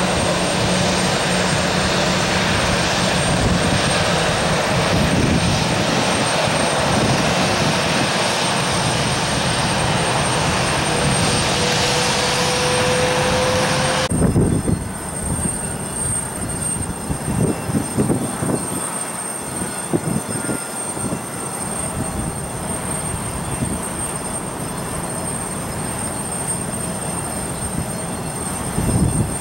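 Jet engines of a taxiing Airbus A321 running steadily, with a steady low hum and a faint whine rising in pitch shortly before halfway. Just past halfway the sound changes suddenly to a quieter, uneven low rumble.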